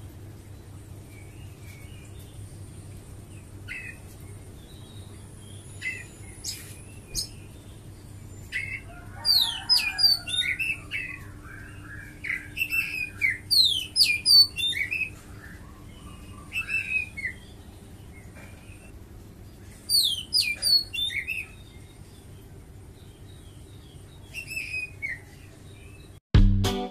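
Small birds chirping in several bursts of quick, falling chirps, over a steady low hum. Music with a beat starts just before the end.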